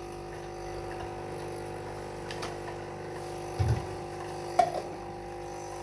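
Milk frother jug being handled after filling: a low thump about three and a half seconds in, then a sharp click about a second later, as of the jug being set down and its lid snapped on.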